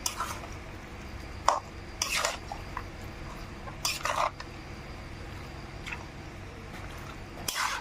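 A metal spatula scraping and stirring raw chicken pieces with spices in a large black wok. There are a few scraping strokes a second or two apart, with a sharp clink of metal on the pan about one and a half seconds in.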